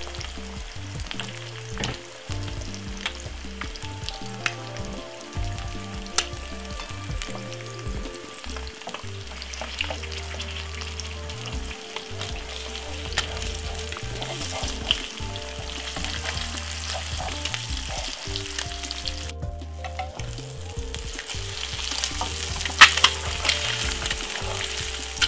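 Two eggs frying in a pan with bacon and its fat, sizzling steadily with scattered crackles and spits. There is a brief break in the sound about three-quarters of the way through, and a sharp pop soon after.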